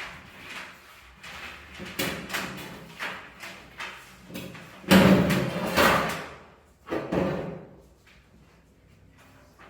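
A run of irregular knocks and scraping slides, like a panel or drawer being moved and shut. The loudest is a long scrape about five seconds in, and the sounds die away about eight seconds in.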